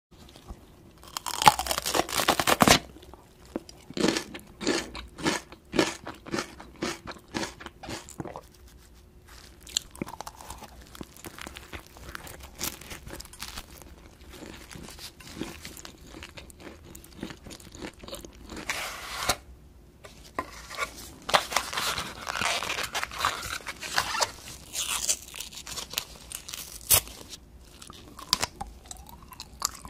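Close-up eating sounds: a loud crunchy bite into a raw yellow bell pepper about a second in, then rhythmic crisp chewing at a bit over two chews a second. After that come softer, uneven chewing and mouth sounds as other foods, among them a sausage in a pastry bun, are eaten.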